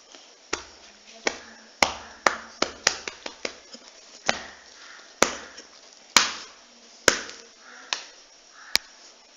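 A hand slapping a sleeping dog's body again and again: about fifteen sharp slaps at an uneven pace, quickest between about two and three and a half seconds in.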